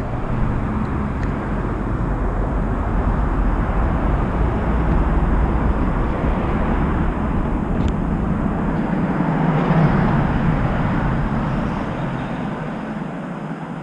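Road traffic on a multi-lane street: a steady rush of tyres and car engines with a deep rumble, swelling about ten seconds in and easing off near the end.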